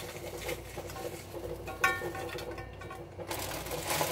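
Light rustling and patter of chopped green peppers and onions being scattered over a pot roast in a roasting pan, with a brief squeak about two seconds in and a plastic bag crinkling near the end.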